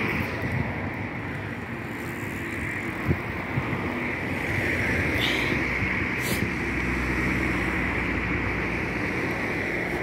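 Steady outdoor noise from wind buffeting a handheld phone's microphone during a walk, with a low rumble that swells about seven seconds in and a few faint clicks.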